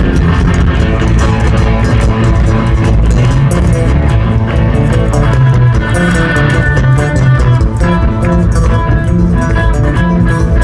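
A live rock band playing an instrumental jam: guitar and bass guitar over a drum kit, loud, from a fan's recording with poor sound.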